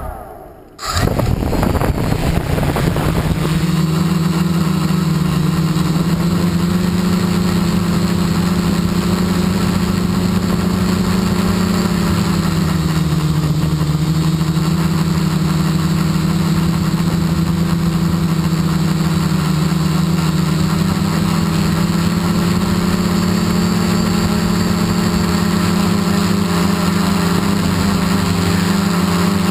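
Quadcopter's electric motors and propellers spinning up about a second in as it lifts off, rising in pitch, then a steady hum as it climbs, heard up close from a GoPro mounted on the airframe. The pitch dips briefly about halfway through.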